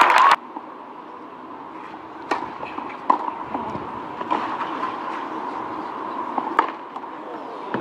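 Crowd cheering cuts off abruptly just after the start. Then tennis balls are struck with rackets during a rally on a clay court, a few sharp pops spaced a second or more apart, over a quiet crowd murmur.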